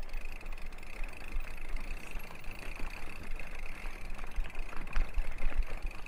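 Mountain bike rolling over a dry gravel dirt road: tyres crunching, with small stones ticking irregularly and a low rumble of wind on the microphone. A faint steady high-pitched hum runs underneath.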